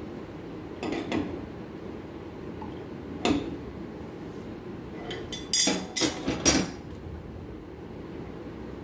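Metallic clinks and knocks from hands working at a CNC router's spindle head: a few single knocks, then a quick cluster of louder ones about five and a half to six and a half seconds in, over a steady low hum.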